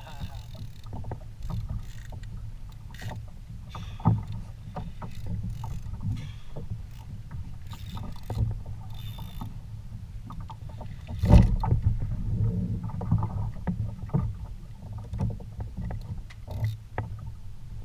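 Water moving against a fishing kayak's hull, a steady low rumble, with scattered knocks and clicks from the boat and gear. The loudest is a thump about eleven seconds in, with a smaller one about four seconds in.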